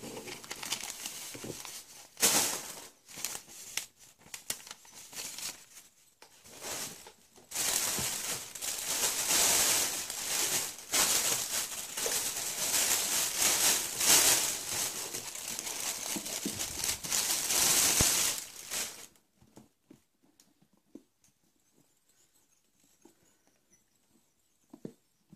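Clear plastic bag crinkling and crackling as a deflated soccer ball is pulled out of it and unwrapped, in bouts of rustling that stop about three quarters of the way through.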